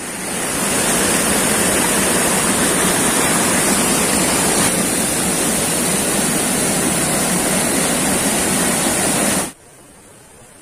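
Waterfall: water rushing in a loud, steady rush. Near the end it cuts off suddenly to a much fainter rush of water.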